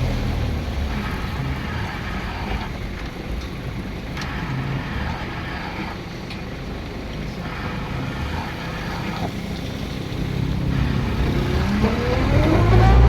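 Motor vehicle engine running steadily. Near the end it grows louder, with a pitch that rises and then falls.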